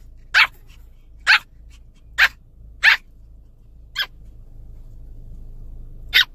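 Pomeranian puppy barking in short, sharp, high-pitched yaps: five about a second apart, then a pause and one more near the end. This is cranky, irritated barking. A low steady rumble of the car cabin runs underneath.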